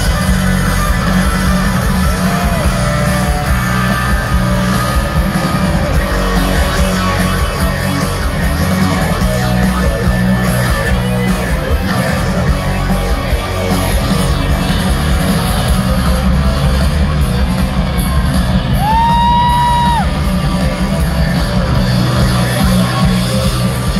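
A rock band playing live in an arena, loud, with heavy bass, electric guitar and vocals, and one long held note near the end.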